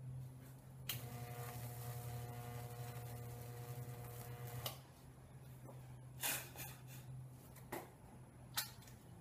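High-voltage transformer for Lichtenberg figure wood burning, switched on: a steady electrical buzz with a hissing crackle of current burning through the wood. It starts with a click about a second in and cuts off with another click about halfway through. A few sharp clicks and knocks follow as the clips and leads are handled.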